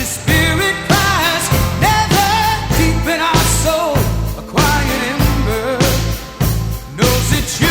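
Loud music: a sung rock-style song with a steady beat and drums.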